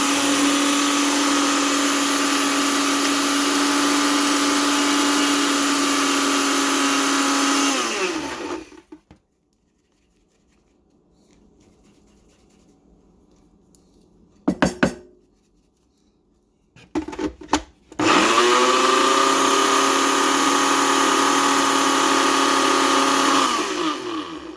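Ninja blender grinding coffee beans: the motor runs at full speed for about eight seconds, winds down and stops. After a few clicks it spins up again for about six seconds and winds down once more.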